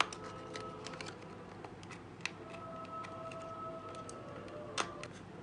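Printed card pieces of a papercraft figure being handled, folded and pressed together: a run of light paper clicks and crinkles, with a sharper click at the start and another near the end.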